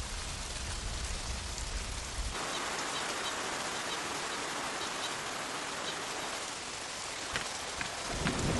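Steady rain falling on a pond's surface, an even patter of drops on water. About two seconds in it turns brighter and hissier, and a deeper sound comes in just before the end.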